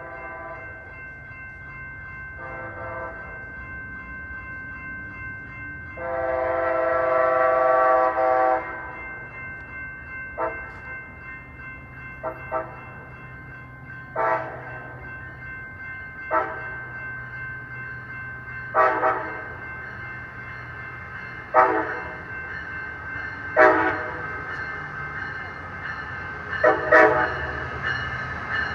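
Amtrak passenger train led by a Siemens SC44 Charger locomotive, pulling into the station. The horn sounds one long blast about six seconds in, and short pitched sounds follow every two to three seconds over a steady high whine.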